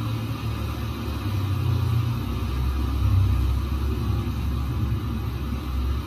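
A low, steady rumble with a fainter hiss above it.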